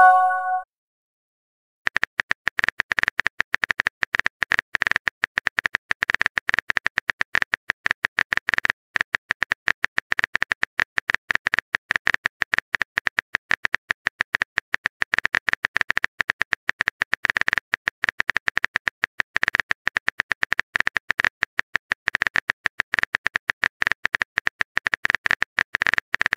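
Phone keyboard typing sound effect: rapid, dense clicking starting about two seconds in, as a message is typed out. A short message chime sounds at the very start.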